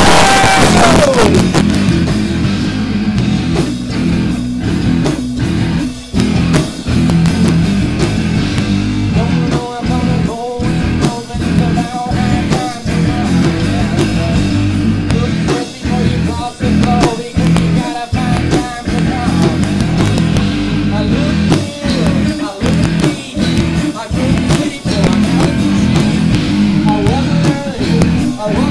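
Live rock band playing loud, with guitar and drums in a stop-start rhythm broken by short breaks about once a second. A high note slides down in pitch at the very start.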